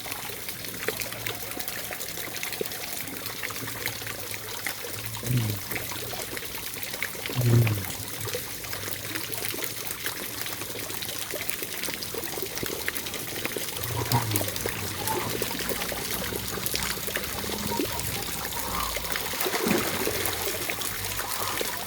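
Steady rain falling, with a few short low sounds partway through.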